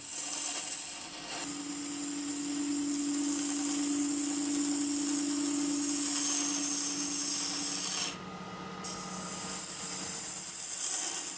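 Wood lathe running with a steady hum while a negative rake scraper cuts an epoxy resin blank, giving a continuous scraping hiss. About eight seconds in the cutting stops for under a second, then resumes.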